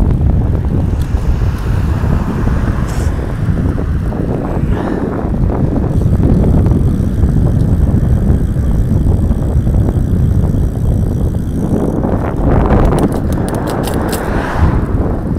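Wind buffeting the microphone of a camera on a moving bicycle, a steady low rumble mixed with road noise. A car comes closer and passes near the end, with a few sharp rattles.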